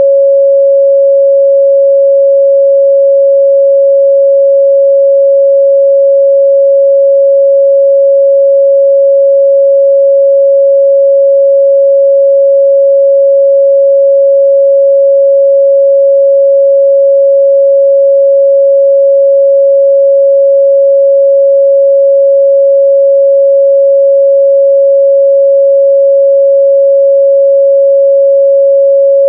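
A steady, loud 553 Hz sine-wave test tone, a single pure pitch held unchanged.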